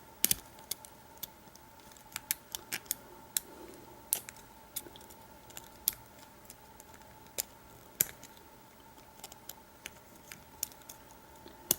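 Small, irregular metallic clicks and ticks of a lock pick and tension bar working the pin stack inside an American Lock 5200 padlock during single-pin picking.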